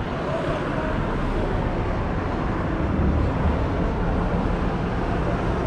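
City street traffic: cars driving along the road, a steady rumble that swells a little about three seconds in.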